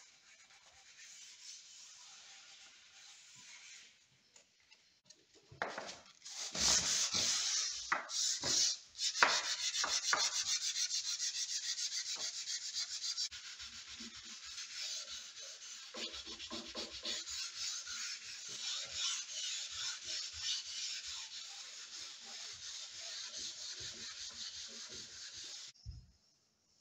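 Wooden panel sanded by hand with a sanding block in quick back-and-forth strokes. The rubbing is faint at first, gets louder about six seconds in, and stops abruptly near the end.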